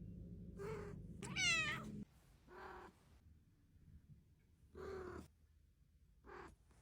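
A cat meowing about five times in short calls, the loudest a rising meow about a second and a half in.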